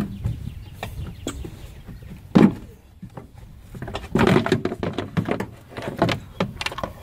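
Plastic bottom half of a truck's air filter box being popped loose and worked out by hand: a sharp pop at the start, then scattered knocks, scrapes and creaks of plastic, loudest about two and a half seconds in and around four seconds in.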